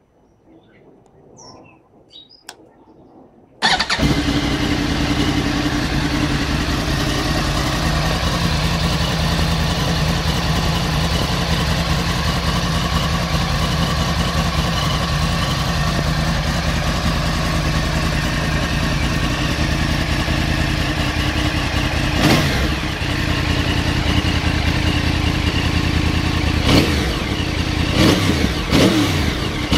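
Stock 2010 Yamaha R1's crossplane inline-four engine, with its stock exhaust, starting abruptly about four seconds in and then idling steadily. There is one short blip of the throttle a little past twenty seconds, and several quick revs near the end.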